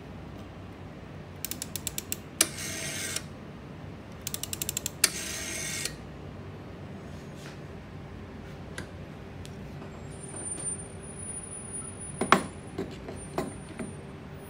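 Vintage rotary-dial telephone dialled twice: each time a quick run of clicks, then a sharp click and a short whirr as the dial spins back. Near the end come a few knocks and ticks as the handset is handled on its cradle.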